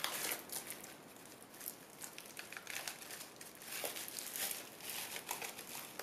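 Bubble-wrap bag crinkling and crackling in the hands as it is pulled open and a plate is slid out of it, in irregular spells with a quieter stretch about a second in.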